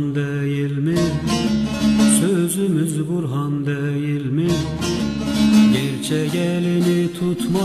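Instrumental interlude of a Turkish Alevi folk hymn (deyiş): a plucked long-necked lute, the bağlama, plays a winding, ornamented melody over a steady drone.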